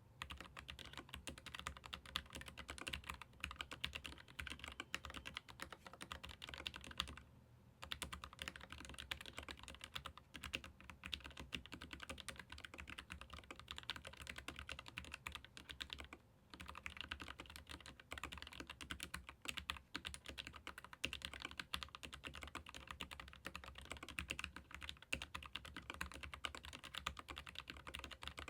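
Typing on a Keychron K15 Pro Max ergonomic mechanical keyboard with hot-swap Gateron low-profile red linear switches: a fast, continuous clatter of keystrokes. It breaks off briefly twice, about seven seconds in and about sixteen seconds in.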